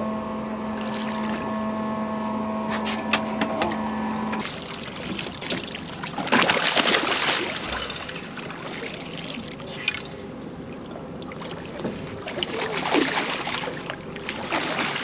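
A steady hum with several pitches runs for about the first four seconds and stops abruptly. After it come uneven swells of water splashing and sloshing against a boat, with scattered light knocks.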